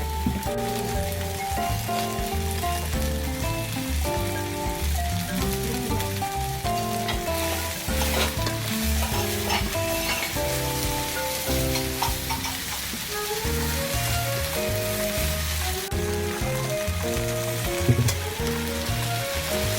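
Food frying and sizzling in a pan, with small crackles, under background music with a gentle melody.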